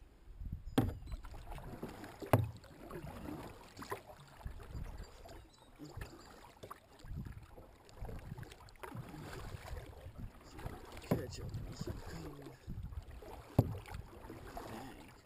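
Double-bladed kayak paddle dipping and splashing stroke after stroke, with a few sharp knocks along the way, the loudest about two seconds in and near the end.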